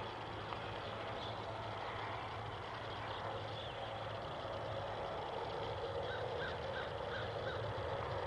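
Steady outdoor background noise with a constant low hum, and a quick run of about six short high chirps about six seconds in.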